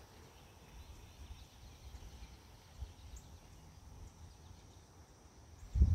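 Faint outdoor garden ambience: a low rumble with a few faint, short bird chirps. A short, low thump near the end.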